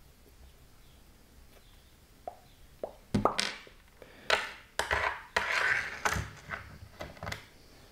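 Small metal screws and parts clicking and tapping on a wooden tabletop as they are picked up and put down, with a short scrape past the middle. The first couple of seconds are quiet.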